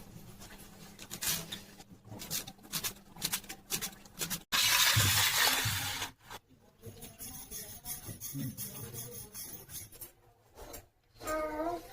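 Cooking in a pan: a spoon scraping and stirring with scattered clicks, then about four and a half seconds in a loud sizzle that starts suddenly and dies away over a second and a half.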